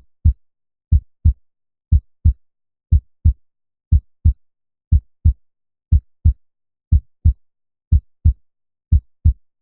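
Human heartbeat sound effect at 60 beats per minute: a steady lub-dub of two low thumps about a third of a second apart, repeating once a second.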